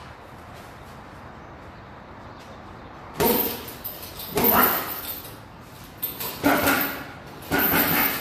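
Punches landing on a hanging Everlast heavy bag: after a few quiet seconds, four hard blows a second or two apart, each striking suddenly and fading over about half a second.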